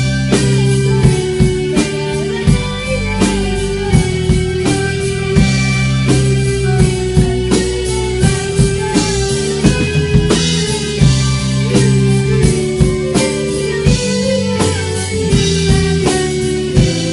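Small rock band playing a song: a drum kit keeps a steady beat under electric and acoustic guitars, with a held lead line that bends in pitch now and then.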